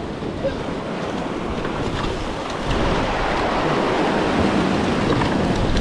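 Surf washing over a rocky shore ledge: a steady rushing hiss of white water that swells slightly louder partway through.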